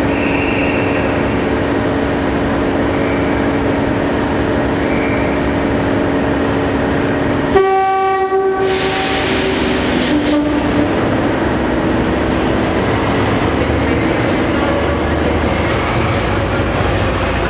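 Class 37 diesel locomotive No. 37706, its English Electric V12 engine running steadily, sounds its three-tone horn about eight seconds in: a blast of a second or so, then a shorter lower note. Near the end the engine note deepens and grows as the locomotive pulls away.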